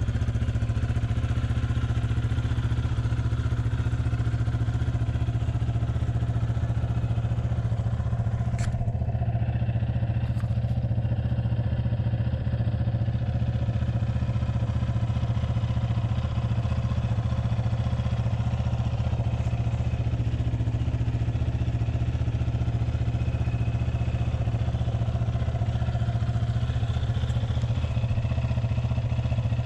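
Yamaha Raptor 700 ATV's single-cylinder four-stroke engine idling steadily. A couple of light clicks come about nine and ten and a half seconds in.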